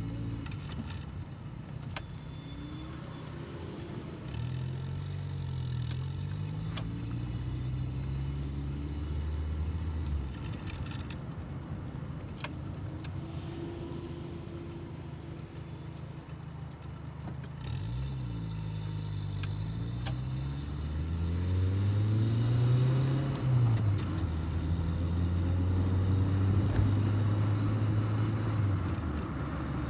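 1984 VW Golf Mk2's carbureted four-cylinder engine running at low speed, its pitch rising and falling with light throttle. There is a stronger climb a little past halfway as the car pulls away.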